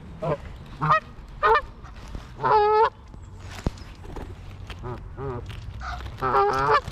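Geese honking in a run of calls: several short honks, then two longer, louder honks, one midway and one near the end.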